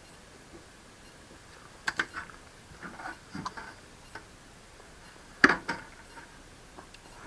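Scattered light clicks and taps of small hard objects being handled on a workbench: a pair about two seconds in, a few more shortly after, and the sharpest click about five and a half seconds in.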